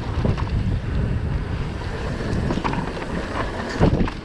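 Wind buffeting the microphone over the rumble and rattle of a downhill mountain bike rolling over a rough dirt track, with scattered small knocks and a short rising-and-falling sound near the end.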